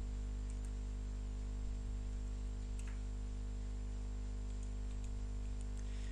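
A few faint computer mouse clicks over a steady electrical hum and hiss from the recording setup.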